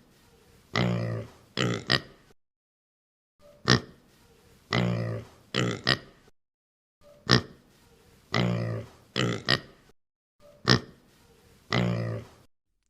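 An animal grunting in a repeated sequence, four times about every three and a half seconds: a short sharp snort, then a longer low grunt of about a second, then a brief grunt.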